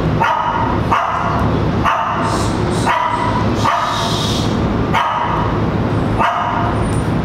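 A dog barking over and over, evenly spaced at about one bark a second, over a steady low hum.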